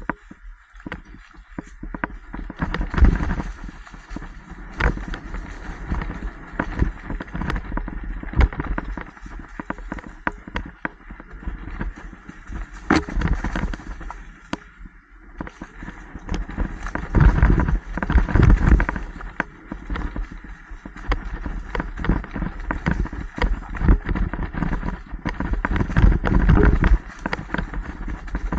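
Mountain bike ridden over a rough dirt trail: tyres crunching over dirt, roots and leaves with a low rumble, and the bike clattering and knocking at frequent, irregular bumps.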